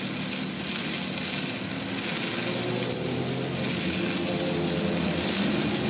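Electric arc welding: the arc crackling and sizzling steadily with a low hum underneath, as a crack in a truck's rear axle housing is welded.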